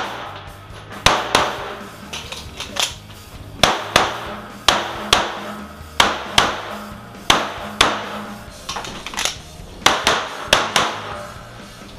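Rapid semi-automatic pistol shots, mostly fired in quick pairs with short pauses between the pairs, each crack trailing a short echo inside a roofed shooting structure.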